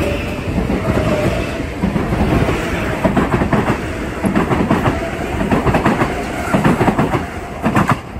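Metro-North M8 electric multiple-unit train moving past, wheels clacking over rail joints in a rapid, irregular series of clicks. The noise drops off suddenly near the end as the last car clears.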